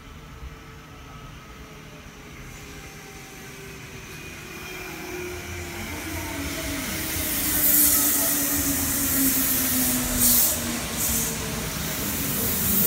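Kintetsu four-car electric train pulling into the station and slowing, growing steadily louder as it nears. Its motor whine falls in pitch as it slows, over the hiss of wheels on the rails, with two short hisses near the end.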